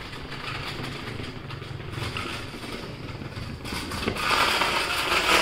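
Electric go-kart powered by an electric skateboard drive, rolling over brick paving toward the microphone. The rolling noise grows louder and brighter in the last second and a half as the kart comes close.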